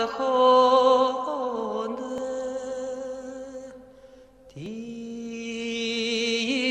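Slow, chant-like vocal music: a voice holds long notes with vibrato and gliding turns. It fades briefly about four seconds in, then swoops up onto a new long held note.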